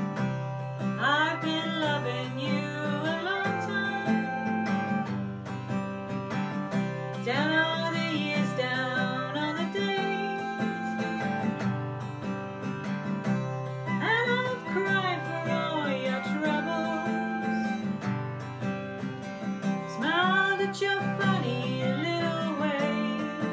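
Acoustic guitar playing a laid-back instrumental intro. A sliding, wavering melody line comes in over it four times, about every six seconds.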